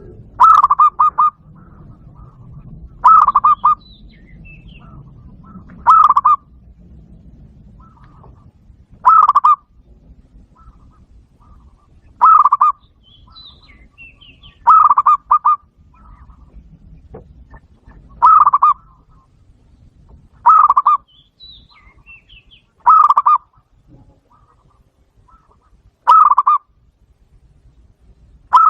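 Zebra dove calling: a short burst of rapid staccato cooing notes, repeated about every three seconds.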